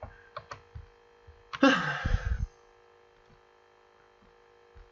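A few light clicks at a computer, then a loud breathy burst of noise lasting about a second, over a steady electrical hum.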